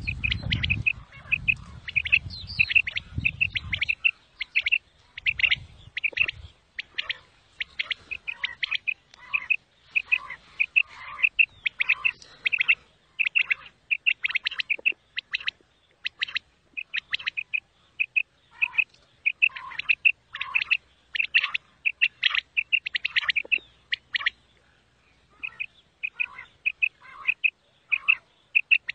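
Common quail calling: short, high, clipped notes in quick groups, repeated over and over, with fainter lower notes between some groups. A low rumble runs under the calls for the first few seconds.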